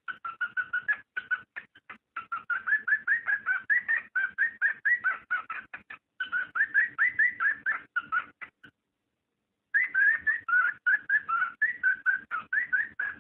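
Cockatiel mating call: a fast, continuous run of short chirping whistles, many rising in pitch, broken by a pause of about a second about two-thirds of the way through.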